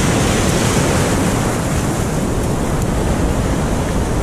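Surf washing in over the shore, a steady rush of foaming water, with wind buffeting the microphone.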